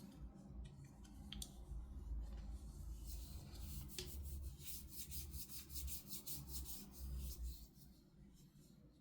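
Hands rubbing and scratching at toy packaging: a fast run of short, scratchy strokes, about five or six a second, from about three seconds in until it stops near the end.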